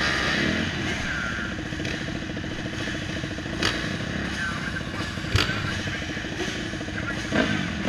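Several motocross bikes idling together on the starting line, engines running steadily, with a few sharp clicks, one about three and a half seconds in, one about five and a half seconds in, and one near the end.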